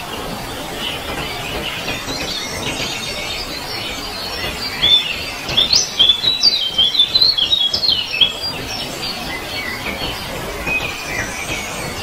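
Birds chirping and twittering in a steady chorus, with a louder run of quick, high chirps from about five to eight seconds in.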